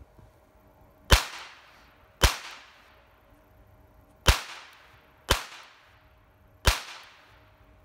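Five single gunshots, unevenly spaced over about six seconds, each followed by a short fading echo.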